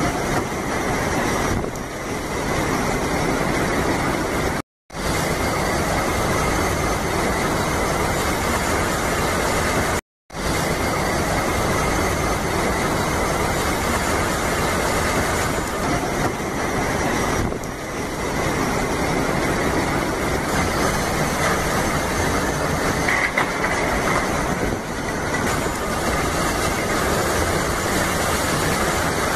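Very heavy cyclone rain pouring down as a loud, steady, dense hiss, broken twice by a brief silence about five and ten seconds in.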